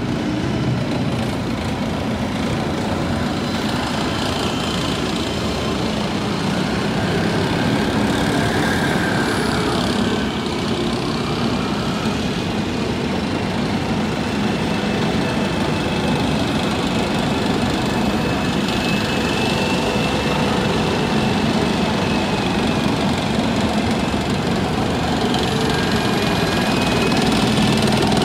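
Main battle tank driving slowly along a paved street: steady engine noise with the rattling clatter of its tracks, growing louder near the end as it comes close.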